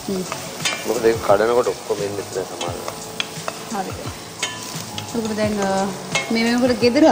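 Chopped onions frying and sizzling in a stainless steel pan while they are stirred, with small clicks of the spoon against the pan. Brief bits of voice come in twice.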